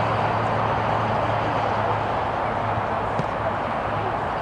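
Steady outdoor background noise with a low, steady hum underneath and no distinct events.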